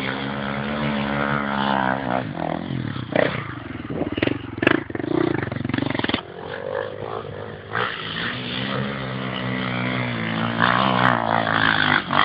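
Dirt bike engine revving hard as it climbs a steep dirt slope, its pitch rising and falling with the throttle, with a rougher stretch in the middle. A couple of sharp clicks cut through it, one a little under five seconds in and one near the end.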